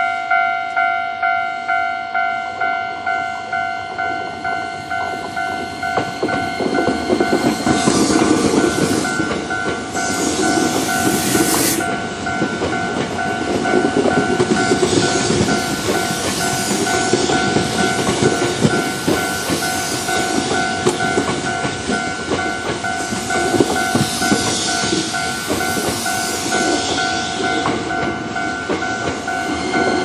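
A Japanese level-crossing warning bell rings about twice a second throughout. From about six seconds in, a Hankyu 9300 series electric train passes close by, its wheels rumbling and clattering on the rails.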